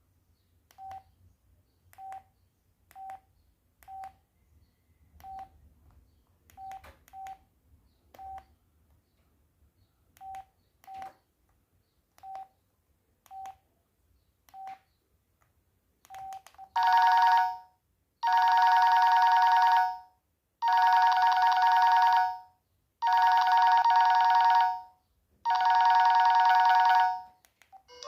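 ZTE X175 mobile phone: short single-pitch key beeps, each with a click, sounding irregularly about once a second as buttons are pressed. About seventeen seconds in, a loud two-tone warbling ring starts and repeats in five bursts of about two seconds each.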